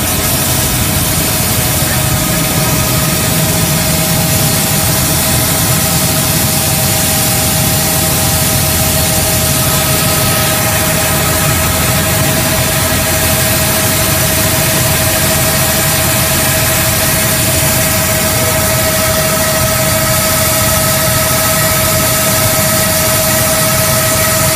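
Helicopter heard from inside the cabin during lift-off and climb: a loud, steady engine and rotor rush with a steady whine that grows stronger about ten seconds in.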